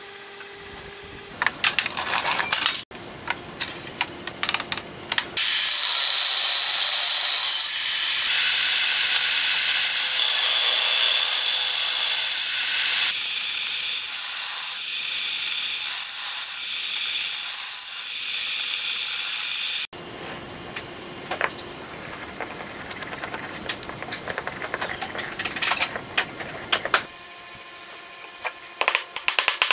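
Table saw cutting a groove along a crack in a wooden block: a loud, steady, hissing whine from about five seconds in that stops abruptly at about twenty seconds. Before and after it, clicks and knocks of the block being handled on a wooden bench.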